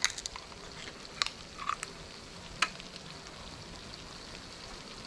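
Scallion-oil noodles sizzling faintly in a wok over a small portable gas burner that is running low on gas and not hot enough, with a few light clicks in the first few seconds.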